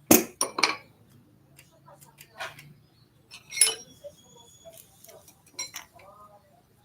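Metal tools and parts clinking and knocking together as they are handled: a few sharp knocks right at the start, then scattered clinks, one of which rings briefly in the middle.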